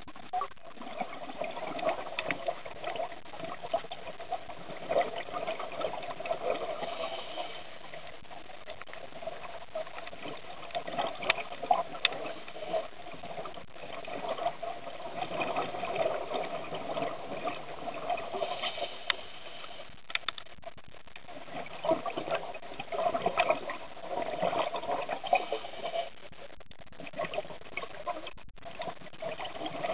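Underwater sound picked up by a camera filming a coral reef: a continuous watery rushing with scattered small clicks and crackles, swelling louder at times.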